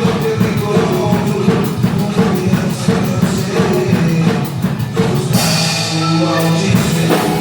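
A live band playing a Christian gospel song, with the drum kit keeping a steady beat under sustained chords. A burst of high hiss comes in a little past five seconds and rings on.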